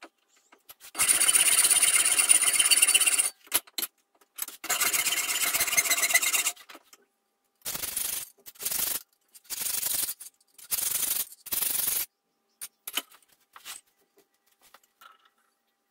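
Hand file scraping across a metal workpiece clamped in a bench vise: two long strokes, then five shorter, quicker ones, with a few light clicks near the end.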